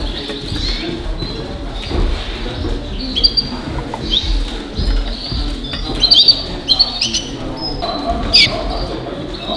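Canaries in show cages chirping and calling: many short chirps and quick rising notes, coming thick and fast, over a low murmur of a busy hall.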